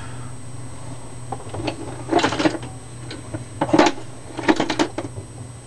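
A hammer tapping on a pin or makeshift punch, trying to drive it into an AR-15 lower receiver: several short metallic taps in small bunches about two seconds in, near four seconds and again shortly after. The pin is hard to start in the thickly anodized hole. A steady low hum runs underneath.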